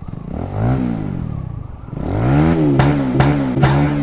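Motorcycle with a loud aftermarket exhaust revving twice, the engine pitch rising and falling. Three sharp cracks from the exhaust come in the last second and a half, the misfire pops the rider is showing off.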